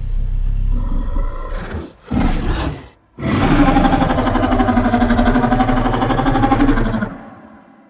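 Skar King creature vocal effect: a low rumbling growl, a short snarl about two seconds in, then a long, pitched, pulsing growl from about three seconds that fades away near the end.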